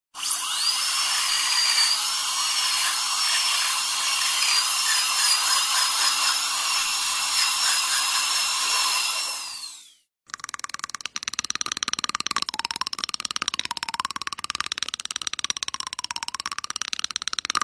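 Dental drill sound effect: a high whine with a slightly wavering pitch over a hiss, cutting off about ten seconds in. After a brief gap comes a lower, rapidly rattling buzz whose pitch rises and falls.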